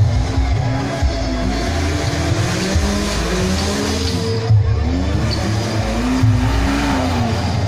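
Modified off-road 4x4's engine revving up and down in repeated surges as it drives through deep mud.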